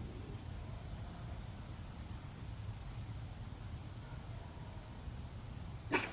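Low steady outdoor background, then near the end a short, sharp puff of breath blown through a Cold Steel .625 big bore blowgun to launch a dart. The shooter feels air leaking somewhere at the mouthpiece.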